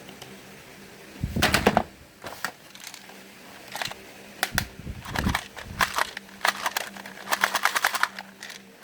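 Small fan parts being handled and worked by hand: irregular clicks, taps and short knocks, with a heavier knock about a second and a half in and a quick rattle of clicks near the end.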